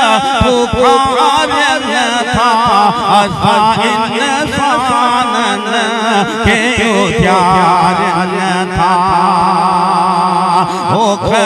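A man singing a devotional molud song into a microphone, unaccompanied, drawing out long wavering ornamented lines. A steady low hum runs beneath the voice.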